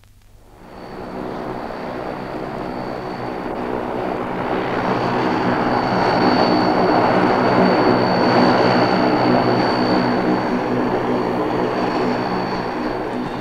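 Tu-95-type bomber's NK-12 turboprop engines with contra-rotating propellers running at high power for takeoff. A dense engine noise with a humming propeller drone and a thin steady high whine fades in about a second in and builds to its loudest around the middle.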